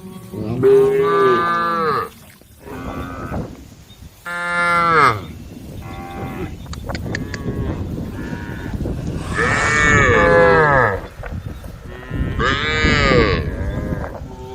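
Cows mooing on and off, four loud long calls, each rising and then falling in pitch, with a fainter one between the first two: cattle calling to the herd.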